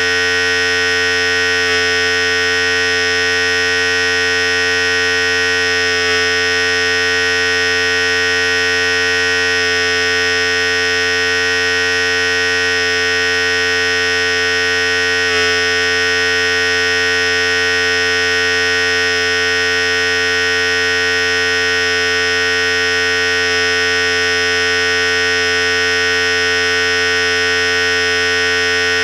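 Philips Series 5000 electric hair clipper running continuously with a steady, even buzz.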